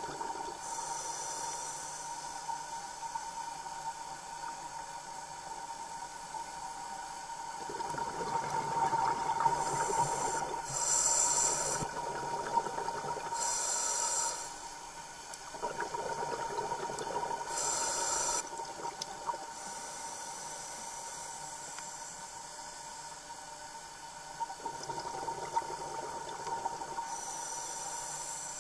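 Scuba diver breathing through a regulator underwater: several irregular hissing inhalations between stretches of bubbling exhalation, over a steady tone.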